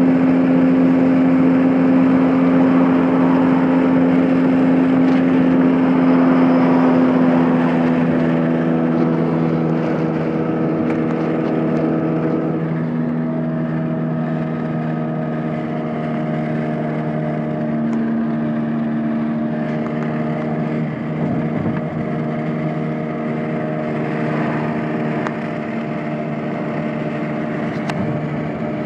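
Car engine running steadily with tyre and road noise, heard from inside the cabin while driving on a highway; the engine note shifts slightly in pitch partway through.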